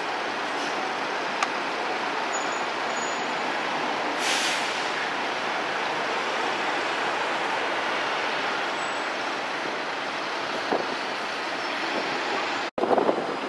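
G:link light-rail tram standing at a platform stop, its onboard equipment running with a steady hum and hiss, and a short burst of hiss about four seconds in.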